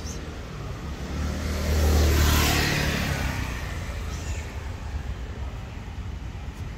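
A motor vehicle drives past, its noise swelling to a peak about two seconds in and then fading away, over a steady low rumble.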